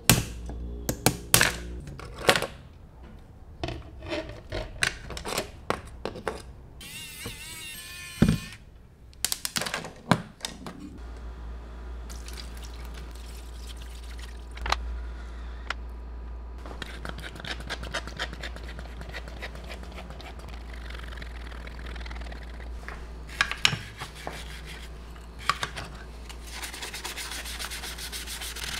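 Small parts and tools clicking, tapping and rubbing on a workbench, many sharp clicks in quick succession. From about eleven seconds in, a steady rushing noise with a low hum runs under a few more clicks.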